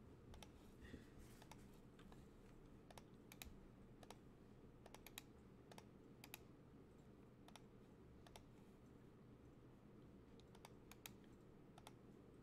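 Faint, scattered clicks of computer keyboard keys, a few quick taps at a time with irregular pauses between them.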